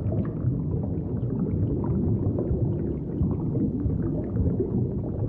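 Deep, steady underwater rumble of churning, turbulent seawater, with faint scattered crackles above it.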